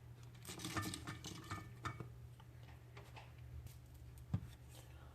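Faint rustling and light clicks of cabbage being packed into a glass jar, with one sharper knock about four seconds in, over a steady low hum.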